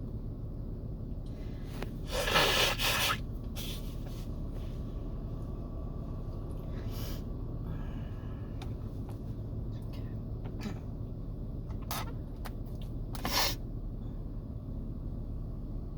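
Two loud breathy bursts from a person in a sneezing fit: one about two seconds in, lasting about a second, and a shorter one near the end, with a few faint clicks between.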